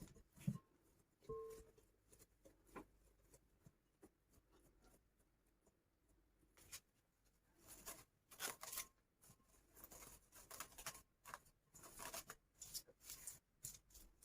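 Faint kitchen handling sounds: scattered scraping and rustling with a few light knocks, busier in the second half.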